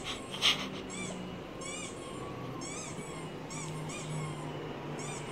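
Squeaky dog-toy squeaks played through a laptop speaker: short rising-and-falling squeaks, about two a second. A louder sharp burst comes about half a second in.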